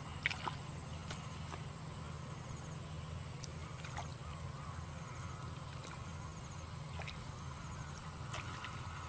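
Hands groping through shallow muddy water and mud, with scattered small splashes and squelches, the sharpest just after the start, over a steady low rumble.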